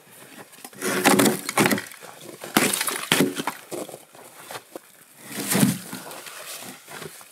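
Hand tools working a pine log, with three separate loud bursts of wood noise: about a second in, around three seconds, and again near six seconds.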